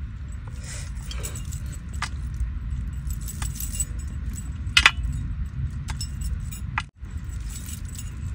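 Metal rings and chain bracelets clinking and jangling as hands pull apart boiled fish over an aluminium pot, with a sharp clink a little under five seconds in. A steady low rumble runs underneath.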